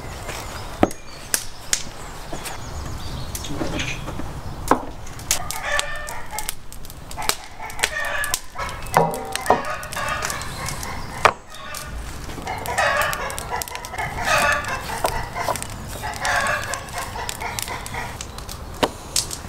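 Chickens clucking and a rooster crowing in repeated bouts, with scattered sharp clicks and knocks.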